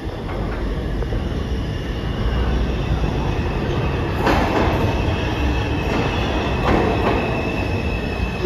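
New York City IRT subway train running through the station, its low rumble growing louder. A thin steady wheel squeal joins about three seconds in, with two louder clatters about four and seven seconds in.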